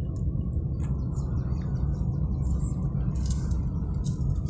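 Steady low rumble of a car's engine and tyres heard from inside the cabin while driving, with a few short high-pitched chirps over it.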